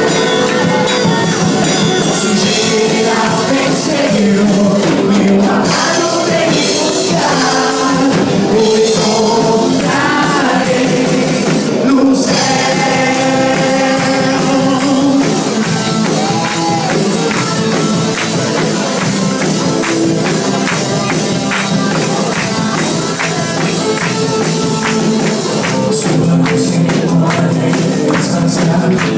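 Amplified live band playing an upbeat song: a singer over electric guitar and a drum kit, with a tambourine or cymbal keeping a steady jingling beat.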